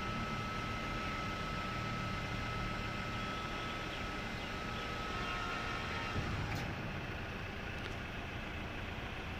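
Hydraulic power pack of a vehicle tail-lift running with a steady hum and a thin high whine; the whine cuts off with a click about six seconds in, while a low steady hum carries on.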